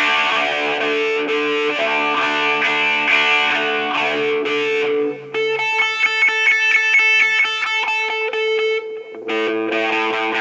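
Distorted Les Paul electric guitar played through a 1982 Dunlop Cry Baby wah pedal and a Rat distortion pedal into a Marshall amp and 4x12 cabinet. Sustained notes give way, about halfway through, to three seconds of fast, evenly repeated notes. After a short break, held notes ring again near the end.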